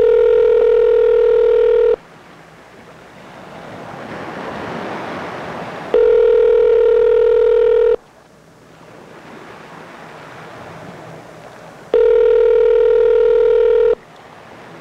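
Telephone ringback tone over a speakerphone: three steady 2-second rings spaced 4 seconds apart, the North American ringing cadence, with faint line hiss between them. It is the signal that the called phone is ringing and has not yet been answered.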